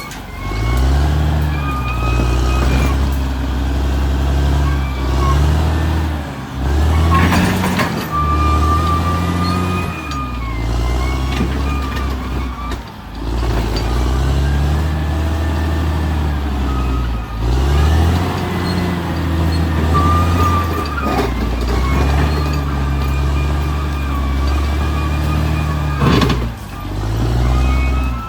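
Caterpillar D6R XL bulldozer's diesel engine working, its pitch rising and falling again and again as it takes load and eases off, with a high whine that moves with it. Two sharp metallic clanks, about a quarter of the way in and near the end.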